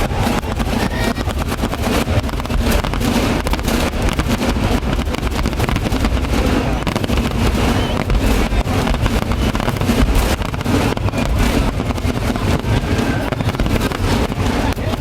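Fireworks going off in a continuous barrage: a dense, rapid crackle of bangs over a steady low rumble.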